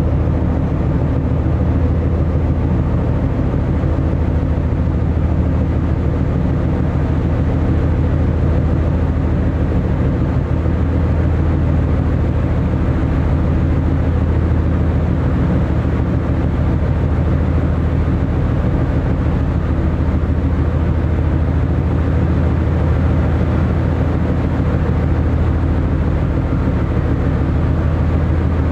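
Car ferry's engines running steadily under way: a loud, even, low drone with a faint steady hum above it that does not change.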